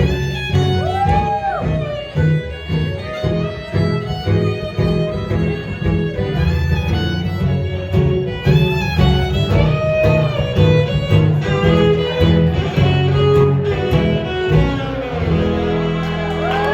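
Live band playing an instrumental passage with no vocals, a sliding melodic lead line over a steady low bass line.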